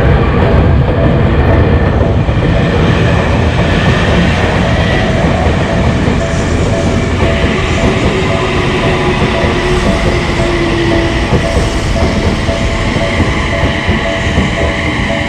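Electric train passing close by, its wheels and running gear making a loud, steady noise. From about seven seconds in, a level-crossing warning bell rings at an even beat over it.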